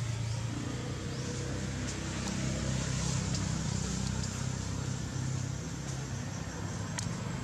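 A motor vehicle engine running steadily as a low, even hum, over a constant hiss and a thin, steady high tone.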